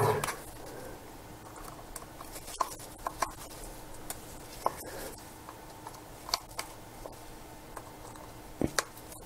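A small metal hand tool working at the parts of a disassembled Sigma 10-20mm lens barrel: a few faint, scattered ticks and clicks over a low steady hum.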